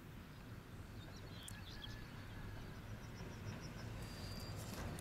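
Distant PKP EN57 electric multiple unit approaching: a low rumble that slowly grows louder. A few faint bird chirps about a second and a half in, and a few faint clicks near the end.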